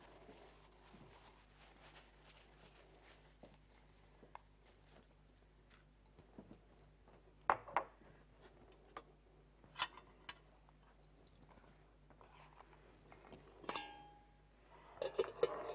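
Sparse clinks and knocks of a spoon and dishes, with a few sharp clinks in the middle. Near the end come one ringing metallic clink as the lid of a stainless-steel pot is handled, then a short cluster of clatter, all over a faint steady hum.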